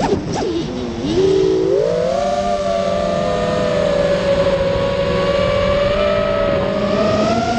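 FPV quadcopter's brushless motors and propellers whining, heard from the onboard camera. The pitch falls sharply at the start, wavers for about a second, then climbs back and holds fairly steady, rising again near the end as the throttle changes.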